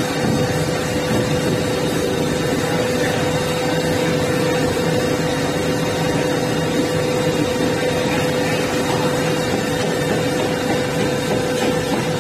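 Electric disc milling machine running steadily: a continuous loud grinding noise with a steady hum near 500 Hz.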